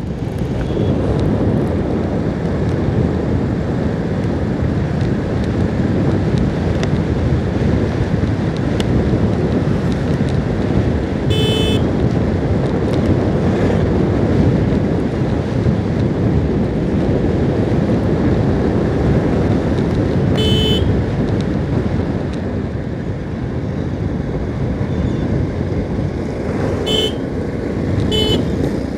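Motorcycle riding along a road: a steady rush of wind and engine noise, with short horn toots four times, once about a third of the way in, once about two thirds in, and twice close together near the end.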